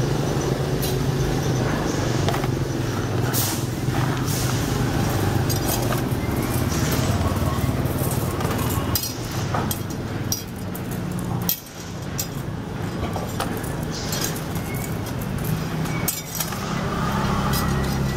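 Steady rumble of road traffic, with light metallic clinks of steel spokes being handled and threaded into a bicycle rear hub.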